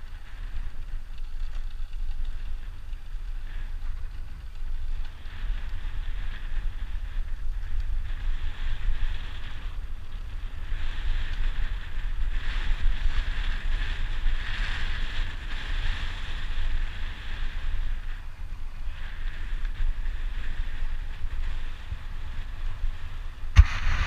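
Wind rushing over the microphone of a camera on a bicycle rolling downhill, a steady low rumble with a hiss that swells in the middle and fades again. A single sharp knock near the end.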